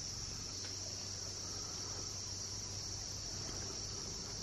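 Steady chorus of insects in the woods, a constant high-pitched buzz that holds without a break.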